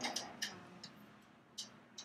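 Screws being tightened by hand into a steel standing-desk frame: a few faint, irregularly spaced metallic clicks.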